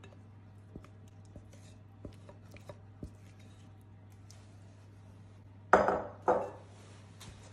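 Silicone spatula scraping mashed banana from a glass bowl into a stainless steel pan, with light scrapes and taps, then two loud clanks of kitchenware about half a second apart near the end.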